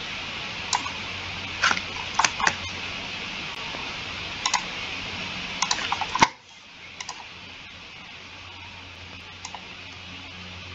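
Computer mouse clicking: sharp single clicks and quick pairs scattered through, over a steady hiss and low hum that drop away suddenly about six seconds in.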